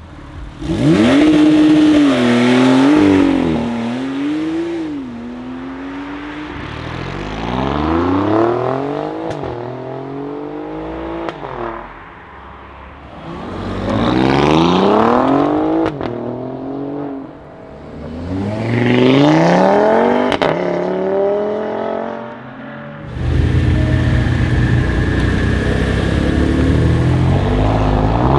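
Alfa Romeo Giulia Quadrifoglio's 2.9-litre twin-turbo V6 accelerating hard in several separate runs, the revs climbing and dropping back at each gear change, with a few sharp cracks. Near the end comes a steadier, louder stretch of engine noise.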